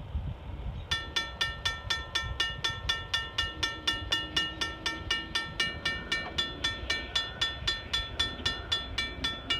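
Railroad grade-crossing bell starting to ring about a second in, striking about four times a second, as the crossing activates for an approaching train. A steady low rumble runs underneath.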